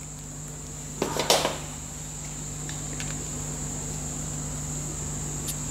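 Small metal handling sounds as a pin is worked out of a cast iron piston by hand: one brief scraping clink about a second in, then a few faint ticks. Underneath runs a steady high-pitched tone and a low hum.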